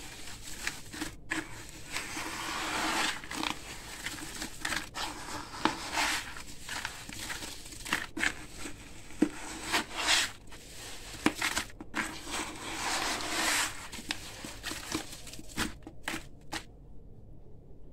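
Hands squeezing and kneading wet, gritty crumbled-concrete paste in a plastic bucket: a continuous run of irregular gritty crunches, squelches and sharp little cracks. It stops abruptly shortly before the end.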